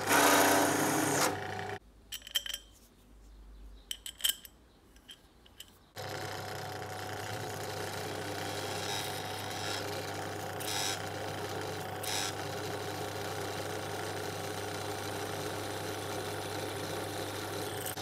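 Benchtop drill press cutting aluminium: a countersink bit grinding into an aluminium plate for the first second or so, then a quiet gap with a few small knocks, then from about six seconds the drill press running steadily with a low hum while a twist bit drills into an aluminium bar.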